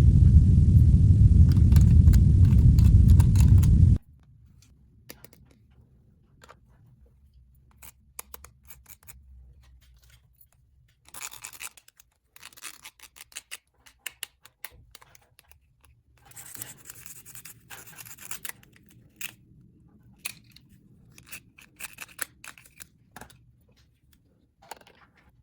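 A loud low rumble for the first four seconds that cuts off suddenly, then quiet, irregular clicking, scratching and rustling of small plastic toy pieces being handled.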